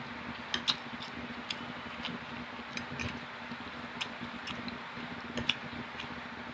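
Person chewing food with the mouth close to the microphone: scattered soft, wet mouth clicks and smacks over a faint steady hum.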